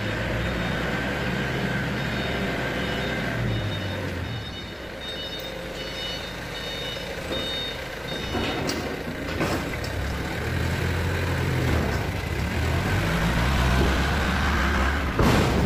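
Forklift engine running and revving as it pushes a load of timber into a container and backs out, with its reversing alarm beeping repeatedly. A few knocks come partway through, and a sudden loud noise comes near the end.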